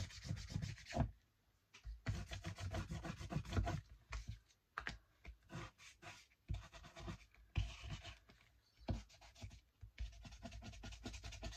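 A foam ink-blending dauber is scrubbed over the edges of a paper journal page in runs of quick rubbing strokes, with short pauses between them. The edges are being inked to make the page look aged.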